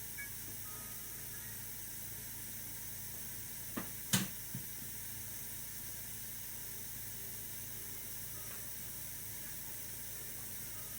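Steady hiss with a low electrical hum, broken about four seconds in by a few sharp clicks, one louder than the rest.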